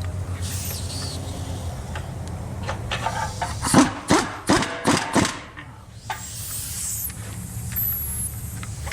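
Transmission installation shop work: a quick series of about five sharp knocks a little under halfway through, over a steady low hum.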